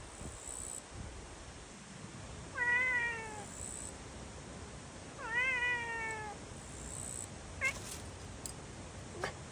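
Domestic cat meowing: two drawn-out meows a couple of seconds apart, each rising then falling in pitch, then one brief, shorter call.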